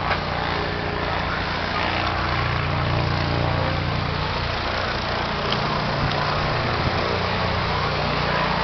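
Vehicle engine idling steadily: an even low hum that holds without revving.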